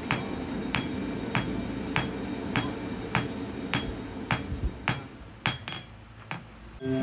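Hand hammer striking red-hot knife steel on an anvil in a steady rhythm, about a dozen sharp strikes at a little under two a second: the first steps of forging a knife blade. A steady low hum runs underneath.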